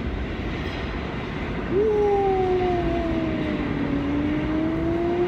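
Subway train noise on the platform: a steady rumble, joined about two seconds in by an electric motor whine that dips slightly in pitch and then rises again.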